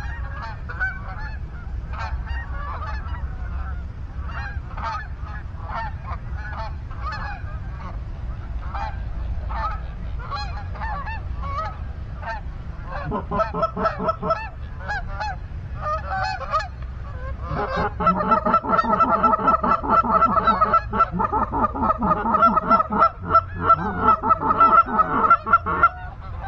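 A flock of geese honking: scattered calls at first, then from about halfway through a louder, rapid, continuous run of honking. A low steady rumble lies underneath.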